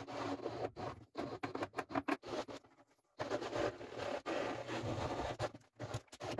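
Brushless cordless drill/driver driving M3 screws into a 3D-printed plastic hull, running in short bursts with brief stops, with a short pause about three seconds in.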